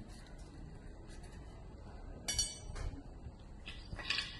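Sharp metallic clinks and knocks: one ringing strike about two seconds in and a small cluster of knocks near the end, over a low background.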